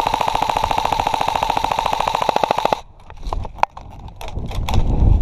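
Airsoft gun firing a long full-auto burst: rapid, evenly spaced cracks over a steady mechanical whine, cutting off abruptly about three seconds in. A few isolated sharp clicks follow.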